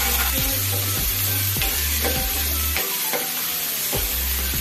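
Chopped onion, garlic, ginger and green chilli sizzling in hot mustard oil in a non-stick frying pan, stirred with a steel spatula that scrapes and taps the pan two or three times a second.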